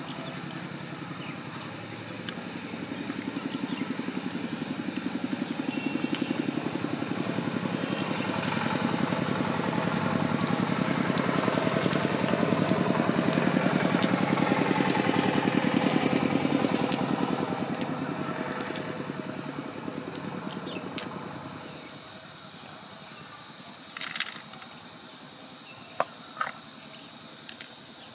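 An engine passing by: a steady hum rises slowly, peaks around the middle, and fades away after about twenty seconds. A few sharp clicks follow near the end.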